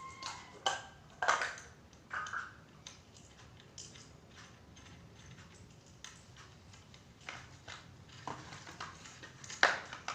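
A series of light clicks and knocks from handling hard objects, irregular and spaced apart, with the sharpest and loudest knock near the end.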